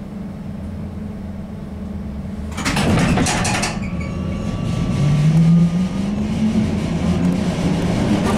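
ZiU-682 trolleybus heard from inside: a steady low hum, then about three seconds in a loud rush of noise lasting about a second, followed by a low motor tone rising in pitch as the trolleybus gathers speed.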